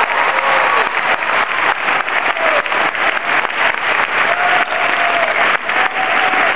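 Large audience applauding: dense clapping, with a few voices calling out over it.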